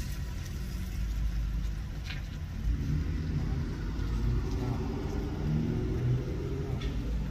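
Car running, heard from inside the cabin: a steady low rumble, with faint voices in the background.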